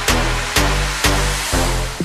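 Electronic dance music with a steady kick drum about twice a second over a held bass line.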